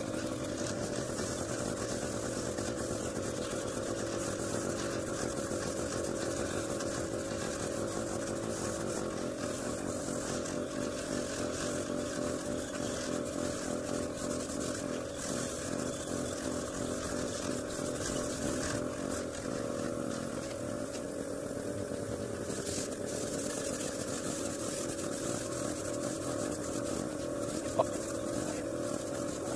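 Small air compressor running steadily to feed an airbrush, with the hiss of air and paint spraying from the airbrush. A single short click near the end.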